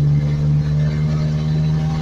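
A 1991 Ford Ranger's engine running steadily with an even hum.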